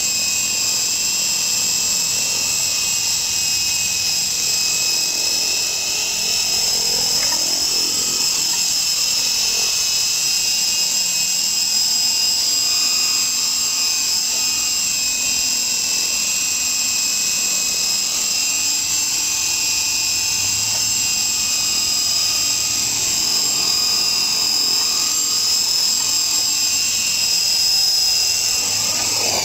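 Electric motor and spinning rotor blades of a Hummingbird fixed-pitch RC micro helicopter in flight, making a steady high-pitched whine. Its main rotor blades have been glue-repaired. The whine cuts off suddenly at the very end.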